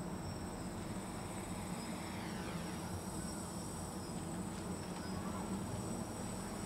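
F450 quadcopter hovering low, fitted with more powerful brushless motors; its motors and propellers make a steady buzz.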